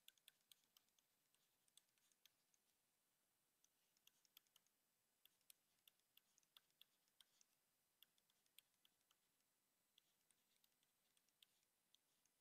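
Near silence with faint, irregular clicks of a stylus tapping and writing on a tablet screen.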